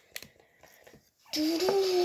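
A few faint clicks of plastic Lego pieces being handled, then, from about a second and a quarter in, a child humming or singing wordlessly in long held notes that slide up and down.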